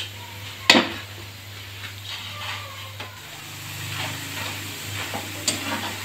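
Strands of dough deep-frying in hot ghee in a kadhai, sizzling softly while a wire mesh skimmer stirs and lifts them. The skimmer gives a sharp metal click against the pan about a second in and a lighter one near the end.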